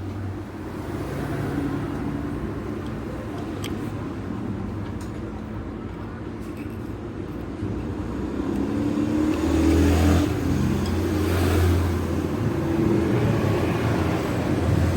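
KTM motorcycle engine running, speed and loudness rising about eight seconds in and staying higher.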